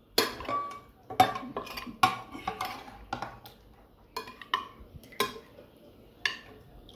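Metal cutlery knocking and clinking against pots and plates: a string of irregular sharp knocks, some with a short ring.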